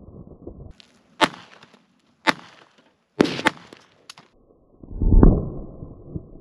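Beretta 21A .22 LR pistol firing about five shots at an uneven pace, each a short sharp crack, two of them in quick succession about three seconds in. About five seconds in, a loud low rumble lasting about half a second.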